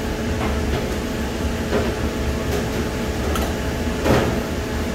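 Steady hum and hiss of kitchen background noise, with a few brief knocks or scrapes, the loudest about four seconds in.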